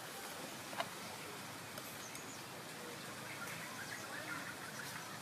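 Quiet outdoor background with faint, scattered bird chirps, and a single light click a little under a second in.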